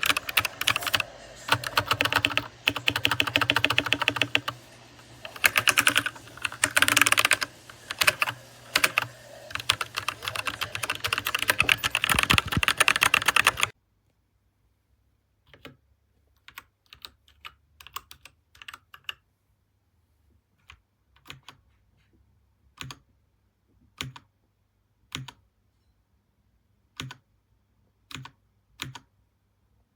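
Dierya DK61se 60% mechanical keyboard with red linear switches being typed on: fast, continuous typing for roughly the first half, then it cuts off abruptly and gives way to quieter, separate keystrokes, a few at a time with gaps between.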